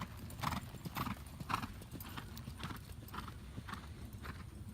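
Horse's hoofbeats, about two a second, fading as the horse is driven out of a barrel turn and away.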